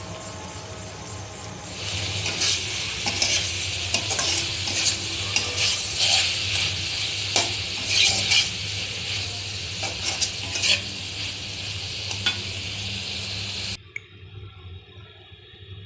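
Malabar spinach and shrimp sizzling as they stir-fry in a pan, with scattered clacks of a spatula stirring against the pan. The sizzling starts about two seconds in and cuts off suddenly near the end.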